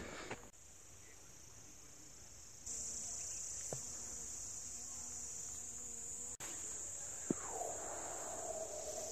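Faint, steady high-pitched drone of insects, which gets louder about three seconds in, with a few faint ticks.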